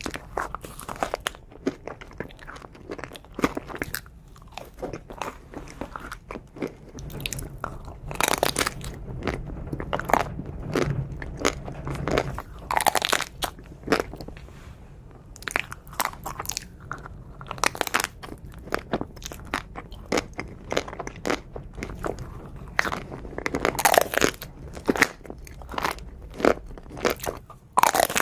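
Close-miked eating sounds: repeated crisp bites and crunchy chewing of a chocolate dessert, in irregular clusters of crackles.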